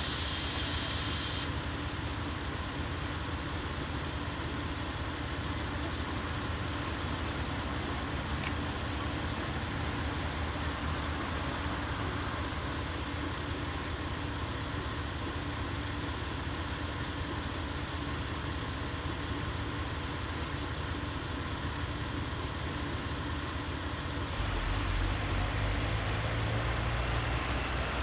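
Diesel railcar engine idling steadily, with a short hiss of released air at the start. About 24 seconds in, a louder, deeper engine rumble comes in.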